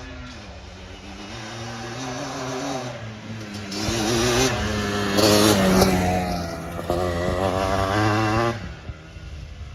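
Yamaha Blaster 200 single-cylinder two-stroke quad with a Pro Circuit exhaust, ridden hard: the engine note builds, climbs and wavers with throttle and gear changes, loudest in the middle, then drops off sharply about a second before the end.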